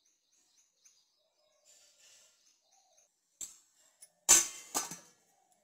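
Metal lid set onto a large aluminium steaming pot: a light clink about three and a half seconds in, then two loud ringing metal clangs as the lid lands and settles.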